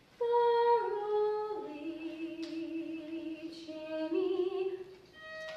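A young woman singing a slow musical-theatre song solo. After a moment of quiet the voice comes in and moves through long held notes, with a wavering vibrato note about four seconds in.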